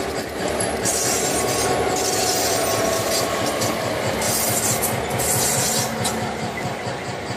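Nickel Plate Road #514 diesel locomotive passing at close range, pulling passenger coaches: a steady throbbing engine over the rumble of wheels on the rails, with short bursts of hiss now and then.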